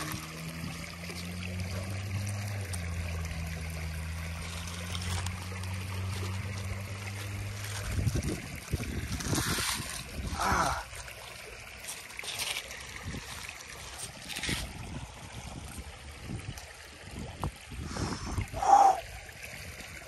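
Shallow creek water running over gravel, with steps on pebbles and splashing as bare feet wade in from about eight seconds on. A steady low hum sounds for the first eight seconds, then stops.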